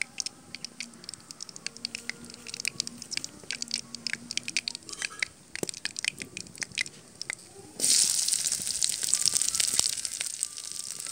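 Hot oil crackling and popping in a large iron kadai, then about eight seconds in a sudden loud, steady sizzle as sliced onions are dropped into the oil and start to fry.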